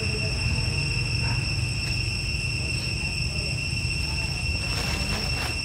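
Steady high-pitched drone of insects, with a brief crinkling of a plastic bag handled by a young macaque near the end.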